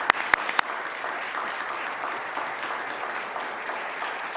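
Legislators applauding: a few loud, close claps in the first second, then steady applause from the chamber.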